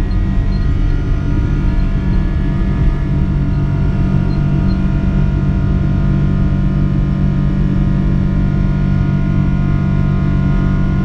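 Boeing 777-300 jet engines running at takeoff power, a loud steady rumble with a steady whine of several tones on top.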